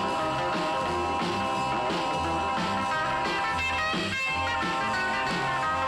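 Background music: a rock track with guitar over a repeating bass line.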